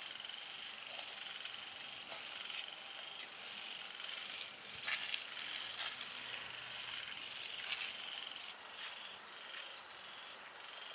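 Steady high-pitched trilling of night insects, with a few sharp clicks and rustles, the loudest about five and eight seconds in.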